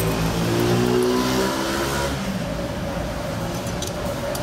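A motor vehicle engine passing on the street, its pitch rising over the first two seconds and then fading, with a few light clicks near the end.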